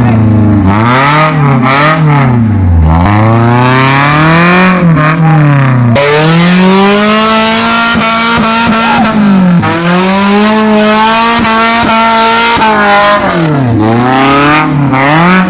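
Off-road 4x4's engine revving up and down over and over as it is driven over rough ground, the pitch swinging with each throttle change and holding steadier for a few seconds at a time in the middle.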